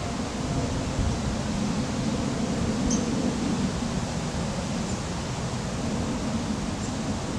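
Steady low rumble and hiss of outdoor background noise, with a few faint, short, high bird chirps scattered through it.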